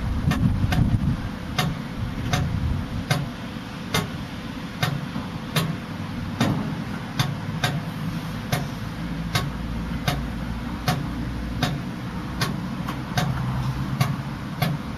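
British Rail Class 66 diesel locomotive standing with its two-stroke EMD engine running, making a sharp, regular ticking a little more than once a second over a low engine rumble.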